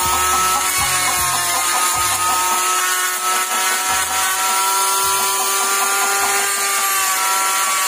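Handheld rotary tool running with a steady whine as its cylindrical burr grinds into a block of wood.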